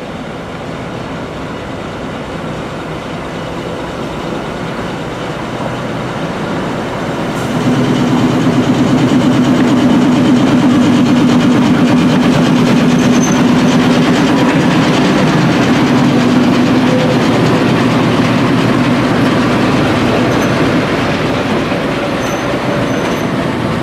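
ChME3 diesel shunting locomotive's engine running as it hauls a rake of coaches past at low speed. The sound grows louder until, about a third of the way in, it jumps up and holds steady with a low hum, and the cars' wheels rumble and click along the rails.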